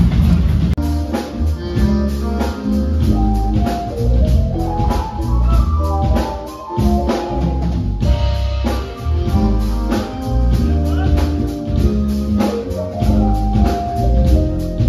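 Background music with a steady drum beat, bass and a melody.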